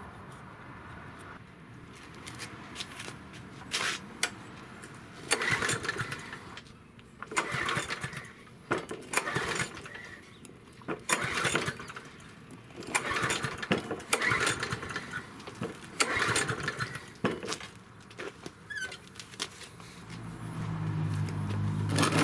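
Yard Machine 6 HP walk-behind lawn mower being pull-started: about nine sharp yanks of the recoil cord a second or two apart, each a short whirr of the engine cranking over without catching, typical of a mower left standing too long. In the last two seconds a steady low engine note begins as it fires.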